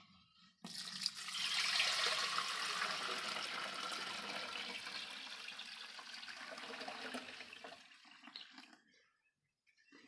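Milk poured from a metal pail through a plastic mesh strainer into an aluminium can: a steady rushing splash that starts about half a second in, is loudest in the first few seconds and tapers away about eight seconds in as the pail empties.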